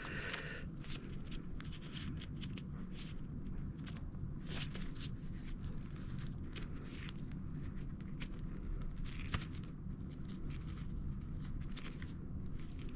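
Thread seal tape being wrapped around the threaded pipe end: scattered light crackles and ticks over a steady low hum.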